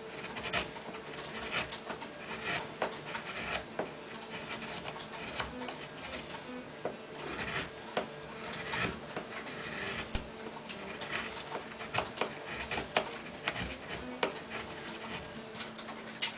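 Hand carving chisel cutting into soft wood: short, irregular scraping strokes with sharp little ticks as the blade bites and chips break away.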